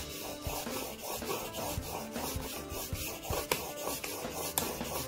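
Stanley No. 4 plane iron, clamped in a roller honing guide, rubbed back and forth on a 1600-grit waterstone: a steady scraping of steel on stone with a few sharp clicks. The blade is being sharpened to its bevel.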